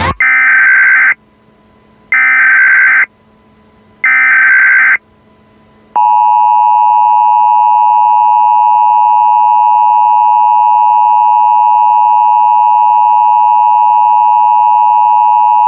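Emergency Alert System header: three short bursts of SAME data tones about a second apart, then the two-tone EAS attention signal held steady for about ten seconds before it cuts off near the end.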